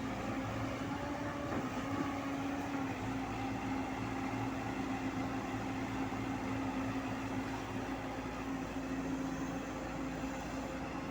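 JCB 140 excavator's diesel engine running steadily, with an even hum that holds one pitch.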